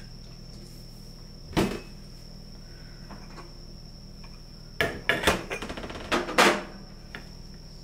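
Kitchenware knocking on a stainless-steel counter while chicken breast is seasoned in an enamel tray. There is one sharp clunk about a second and a half in, then a quick cluster of knocks and clinks between about five and six and a half seconds. A faint, steady high-pitched tone sits underneath.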